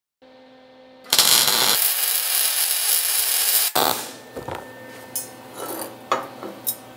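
Wire-feed (MIG) welding arc crackling steadily for about two and a half seconds as a steel tube joint is welded, then cutting off abruptly. Light metal clinks and handling of the steel parts follow.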